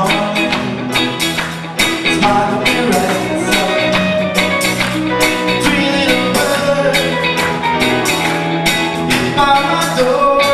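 Live rock band playing: a drum kit keeps a steady beat under electric guitars, bass and piano, with voices singing over it.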